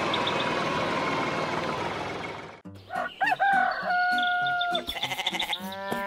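Cartoon farm sound effects: a truck running until it cuts off about two and a half seconds in, then a rooster crowing once with a long held note, and wavering sheep bleats near the end.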